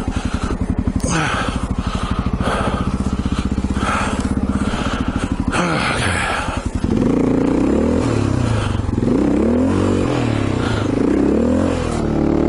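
Honda XR650 single-cylinder dual-sport engine running steadily at low speed, then from about seven seconds in revving up and down again and again as the bike struggles for traction in deep snow.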